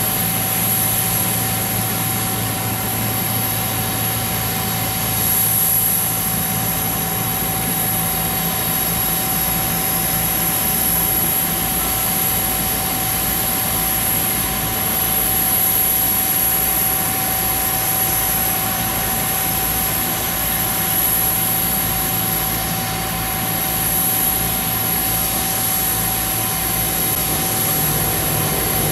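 Steady turbine whine from a parked Gulfstream business jet: a constant high whistle and a mid-pitched tone over a low hum, which weakens about twelve seconds in.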